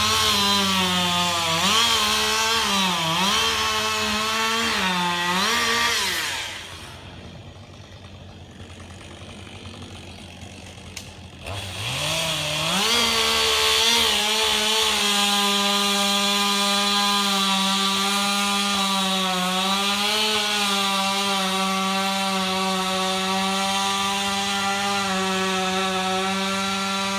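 Two-stroke chainsaw at high revs, its pitch dipping and recovering as the chain bites into wood for about six seconds. It then drops away to a quieter stretch. About twelve seconds in it revs up again and runs steadily at full throttle.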